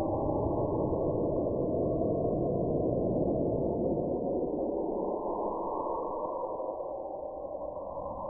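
Eerie radio-signal sound effect presented as a signal received from deep space: a muffled, warbling drone of static and wavering tones, with nothing above a low ceiling. Its low rumble thins out about five seconds in.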